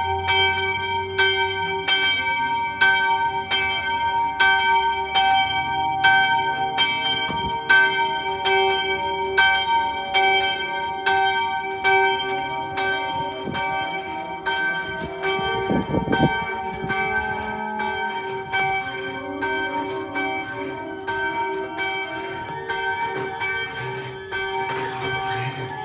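Church bells ringing, struck about twice a second in a continuous run, each stroke's note humming on into the next.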